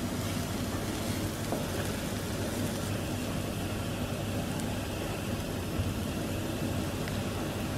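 Finely chopped aromatics sizzling in oil in a nonstick frying pan: a steady frying hiss with a low hum underneath.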